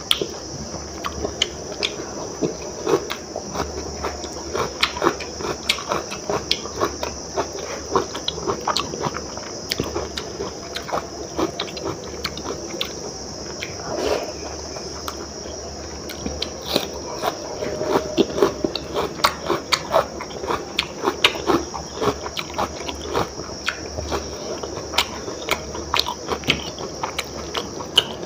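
Close-miked eating by hand: wet mouth smacks and chewing of spiced rice-and-lentil khichdi, with fingers working the rice on a steel plate, giving many short clicks and smacks throughout. A steady high drone sits underneath.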